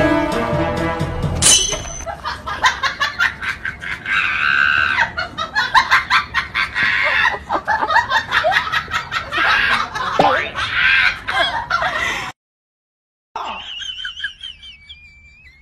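Music for about the first second and a half. Then a long run of rapid, choppy calls or cackles. It breaks off about twelve seconds in with a second of silence, and fainter sounds follow.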